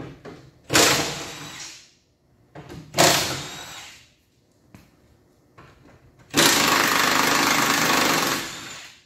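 Impact wrench run in three bursts, two short ones that fade off and then a steady run of about two seconds, unfastening the mounting bolts that hold the Nissan Leaf's battery pack under the car.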